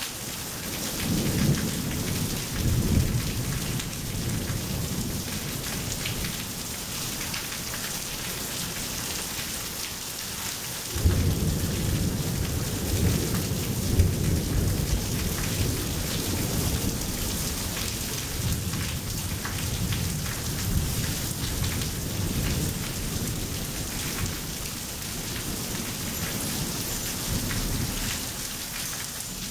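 Steady rain falling, with thunder rumbling: a low rumble in the first few seconds, then a louder rumble that breaks in suddenly about eleven seconds in and goes on for more than ten seconds.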